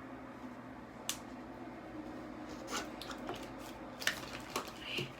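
A few light clicks and knocks, as of small objects being handled, over a steady low hum.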